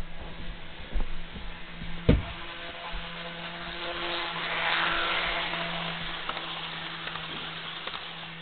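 HO-scale Jouef Amtrak Turboliner model, running on a Kato drive, whirring along sectional track as it comes head-on. It grows louder to about halfway through, then eases off as it passes. A steady low hum runs underneath, and a couple of sharp knocks come in the first two seconds.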